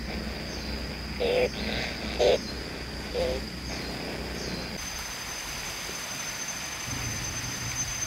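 Kingfisher nestlings in a tree-hole nest giving short rasping begging calls about once a second, stopping about three and a half seconds in. A steady high whine runs underneath, and a low hum comes in near the end.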